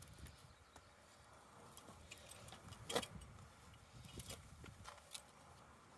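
Faint scattered metallic clicks and clinks of small metal parts being handled, with the sharpest click about three seconds in.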